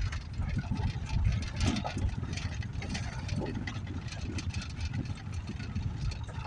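Engine and road noise inside the cabin of a moving truck, a low, uneven rumble.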